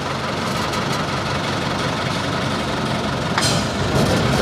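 Safari vehicle's engine running steadily, with one sharp click about three and a half seconds in.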